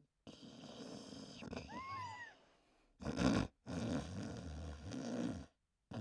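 Snoring in several edited pieces, with short gaps of silence between them. Near two seconds in comes a brief whistle that rises and falls twice.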